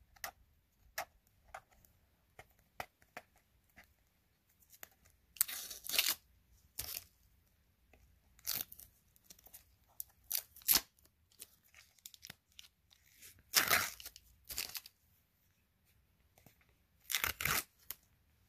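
Green tape being peeled and ripped off a stack of plastic card toploaders in several short tearing pulls, with faint clicks between them.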